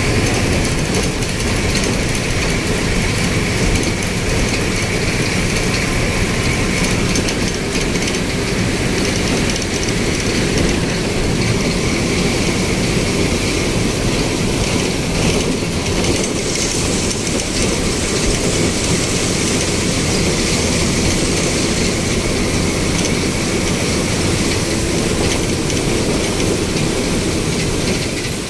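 Steady engine, tyre and wind noise of a moving bus, heard from inside the cabin.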